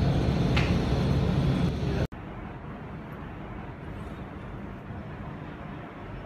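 Steady low droning hum with a noisy wash over it, cutting off abruptly about two seconds in to a much quieter, even background hiss.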